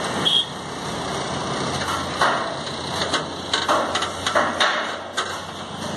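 Heavy-haul convoy of Goldhofer multi-axle modular trailers on the road, giving a steady engine and rolling noise. From about two seconds in comes a run of short, sharp clanks and knocks.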